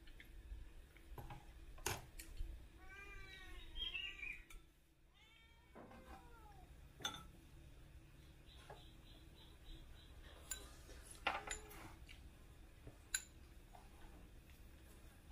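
Faint clinks of a spoon and ladle against ceramic bowls, and a small animal calling: several short calls that rise and fall in quick succession about three seconds in, then one more a couple of seconds later.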